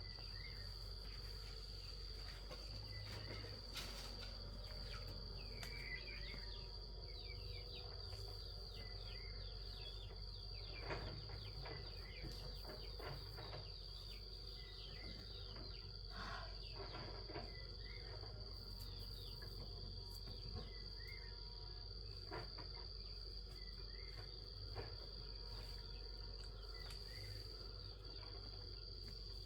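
Steady high-pitched insect chirring, typical of crickets, with a few faint chirps and scattered small knocks.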